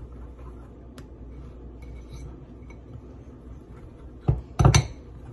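Metal fork stirring pancake batter in a bowl: soft scraping with light clinks, and two loud knocks of the fork against the bowl near the end.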